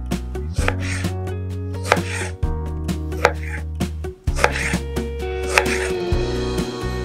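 Knife slicing fresh apricots on a cutting board, a sharp knock of the blade on the board about once a second, over background music with held notes.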